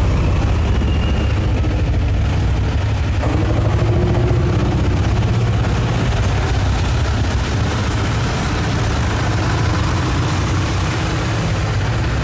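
Diesel engines of several vintage tractors running steadily as they drive past one after another, a low, even engine rumble throughout.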